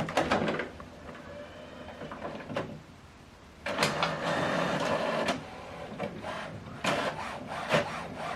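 HP OfficeJet Pro 9120e inkjet printer starting a two-sided print job: clicks and whirring of the paper feed and print mechanism. There is a louder stretch of feeding about halfway through, then a series of sharp clunks.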